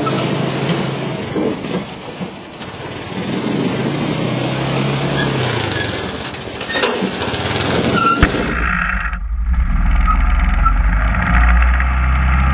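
Honda Foreman ATV's single-cylinder four-stroke engine running as it drags a hitch-mounted pull plow through snow, with snow scraping under the blade. About eight seconds in the sound turns closer, with a deeper, steadier engine drone.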